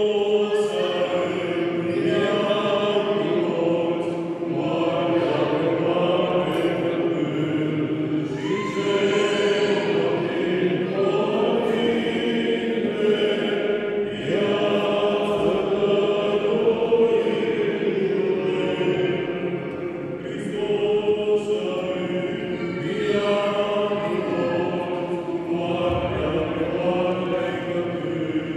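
Orthodox liturgical chant sung without a break by a choir of several voices.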